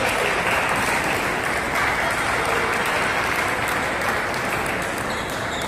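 Spectators applauding a point in a table tennis match, the clapping dying down near the end.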